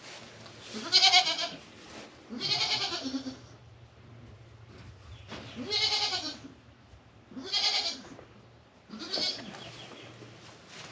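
Goats bleating: five separate calls, each under a second or so, with pauses of one to two seconds between them.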